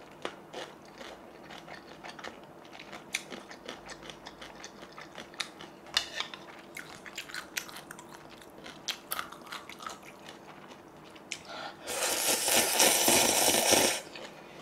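Close-miked eating of malatang cup noodles: chewing with scattered small clicks and taps, then a loud slurp of noodles lasting about two seconds near the end.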